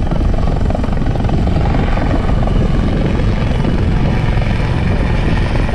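AgustaWestland AW159 Wildcat helicopter flying a display, its twin turboshaft engines and rotor making a loud, steady rumble with a fast rotor chop.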